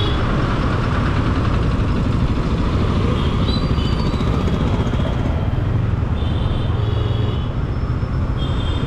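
Riding a motorcycle through city traffic, heard from a helmet-mounted camera: a steady rumble of engine and wind noise. Other vehicles' horns honk briefly a few times, about three and a half seconds in, past six seconds and near the end.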